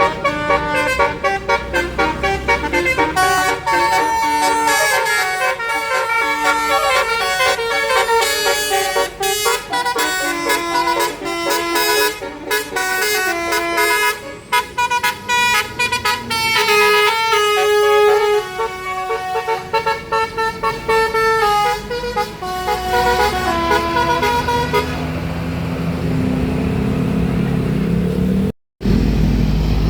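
A bus's basuri 'telolet' multi-tone horn playing a fast tune of rapidly changing notes for about 24 seconds. After that comes bus engine and road noise, broken by a brief dropout near the end.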